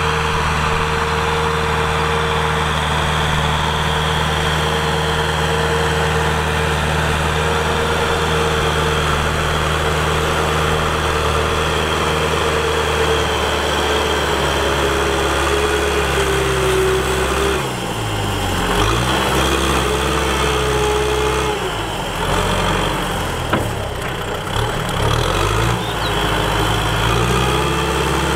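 Diesel farm tractor engine running while it pushes soil with a front blade, with a steady whine over it. After a change about halfway through, the engine speed repeatedly dips and recovers as the blade takes up load.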